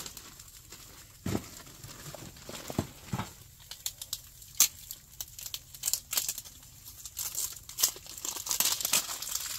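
Irregular crinkling and crackling with scattered sharp clicks, getting busier in the second half.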